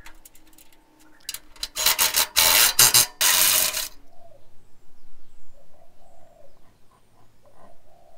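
A tool undoing a bolt on the recovery point's chassis mount: about two seconds of loud, dense rattling with a brief break near the middle, after a few light clicks as the tool is fitted to the bolt head.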